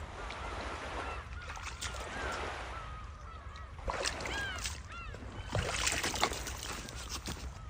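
Birds calling repeatedly in short pitched calls, a few of them arching up and down about four seconds in, over a steady low rumble, with some sharp clatters around four and six seconds in.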